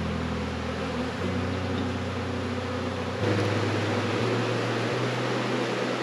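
A swarm of honeybees buzzing close up, a steady hum of many wings whose pitch shifts a few times as bees fly near.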